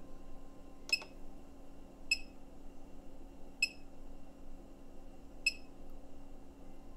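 Short electronic beeps from the keypad of a Kunkin KP184 DC electronic load, four in all, spaced a second or two apart, as its keys are pressed to raise the load current. A steady low hum runs underneath.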